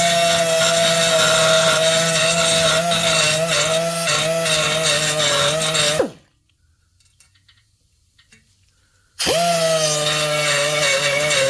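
Air-powered tool running with a high, steady whine while drilling out a broken spark-arrestor bolt in an ATV exhaust. It stops about six seconds in and starts again about three seconds later.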